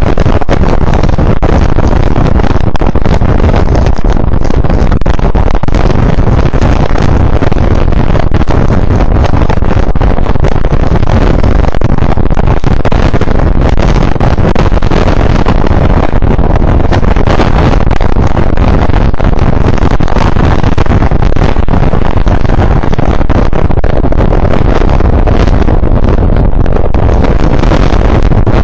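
Hurricane Ida's winds buffeting the microphone: a loud, steady rush of noise, heaviest in the low end.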